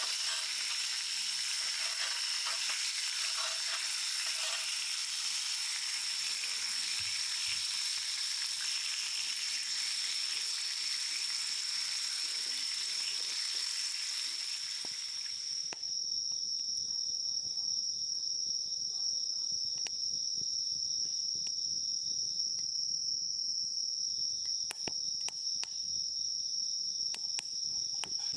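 Sizzling, like food frying, until it cuts off suddenly a little over halfway through. A steady high chorus of crickets runs throughout and is left alone after the cut, with a few faint clicks.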